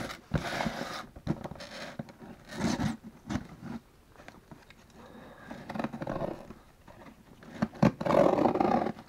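Cardboard shipping box scraping and rustling as it is moved and turned over, then a knife cutting through the packing tape on its top near the end, just after a couple of sharp clicks.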